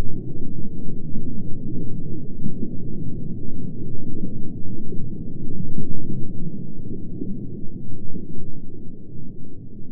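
Low, muffled underwater ambience: a steady rumbling wash with nothing in the high range, slowly fading over the last few seconds.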